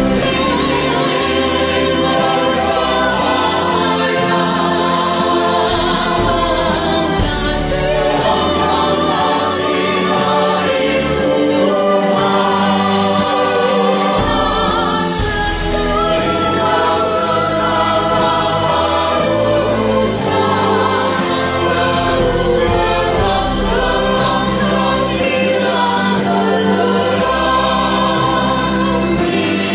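Church choir music: a woman soloist sings with a choir over instrumental accompaniment with a steady bass line.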